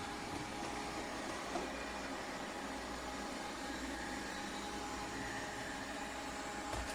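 A MONSGA robot vacuum running with a steady whir and a faint hum.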